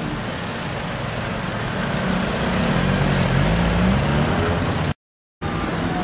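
Road traffic: cars driving past, engines and tyres, with one car's engine hum rising and falling as it goes by in the middle. The sound cuts out completely for about half a second near the end.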